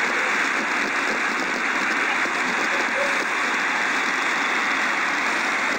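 Steady rushing of Niagara Falls, the continuous noise of a great mass of falling water.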